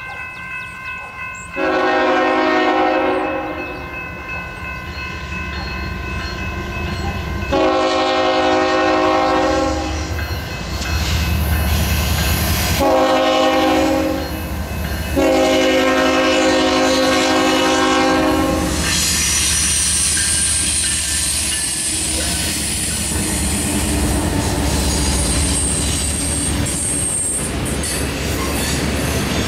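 Freight locomotive air horn sounding the grade-crossing signal: two long blasts, a short one and a final long one. The lead CN ES44DC GEVO diesels then rumble past, followed by loaded tank cars rolling by with wheel clatter and some high wheel squeal.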